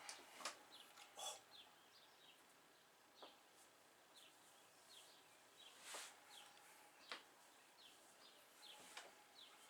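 Faint birdsong: short chirps that slide down in pitch, repeating every second or so, with a few soft clicks in between.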